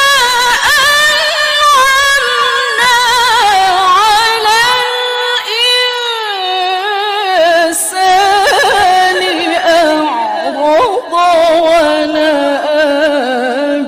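A woman reciting the Quran in melodic tilawah (mujawwad) style. She draws out long, ornamented notes with wavering runs, and the pitch sinks lower toward the end.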